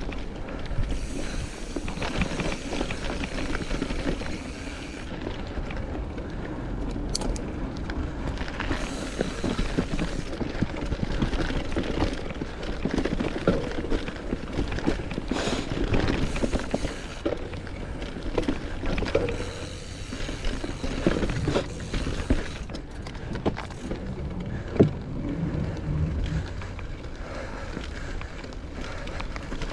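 Mountain bike ridden along dirt singletrack: tyres running over the ground and the bike rattling and clattering over bumps, with a steady low rumble beneath. One sharp knock stands out near the end.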